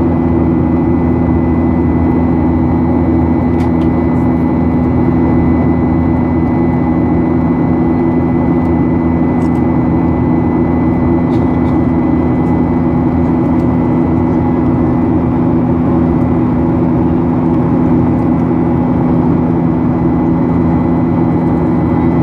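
Steady cabin drone of a Ryanair Boeing 737's jet engines during the climb after take-off, heard beside the engine. It is a deep, even hum with a thin, steady high whine over it.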